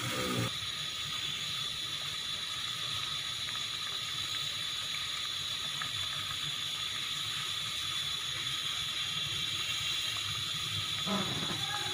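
Mulberries and water cooking in a kadhai on the stove, a steady hiss and fast, fine bubbling as the fruit simmers and releases its juice.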